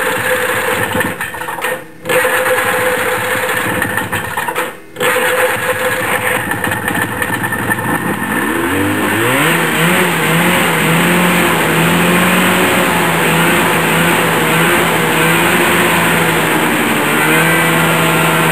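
1973 Arctic Cat Panther 440 snowmobile's fan-cooled two-stroke engine running with the hood off, the sound dipping out briefly twice early on. About eight seconds in it is blipped up and down on the throttle several times, then held at a steady higher speed.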